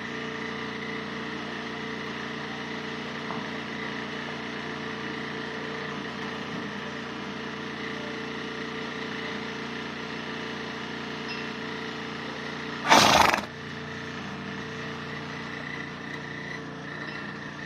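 A pet sneezing once, loudly, about thirteen seconds in, over a steady background hum.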